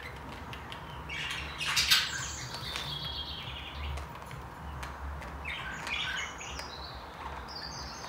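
Budgerigars chattering, scratchy warbling calls with squawks, in two spells: the loudest squawk comes about two seconds in, and a second spell runs from about halfway to near the end.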